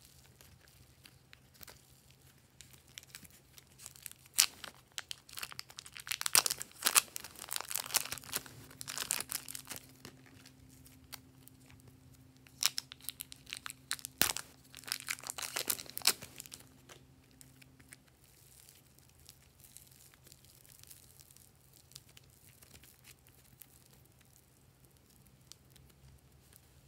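Plastic zip-lock bags of soft clay crinkling and crackling as they are handled and squeezed open, in two spells of crackly noise with a sharp click near the middle, then only faint, soft handling noise as the clay is pressed into the bowl.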